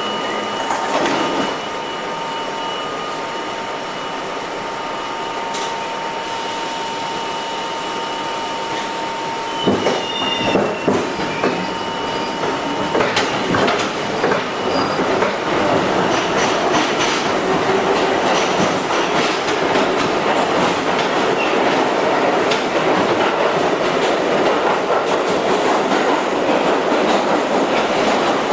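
R32 subway car pulling out of a station and running through the tunnel: a steady high tone over the rolling noise for the first half, then the ride grows louder, with the wheels clattering over rail joints and some wheel squeal as speed builds.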